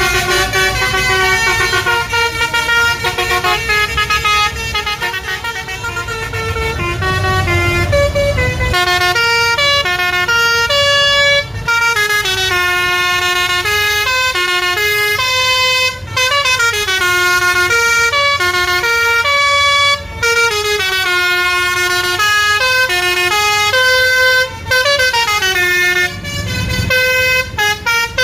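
Bus telolet basuri musical horn playing a tune of loud, stepping notes, with several quick downward pitch slides and short breaks between phrases. A low engine rumble sits under it for the first several seconds and again near the end.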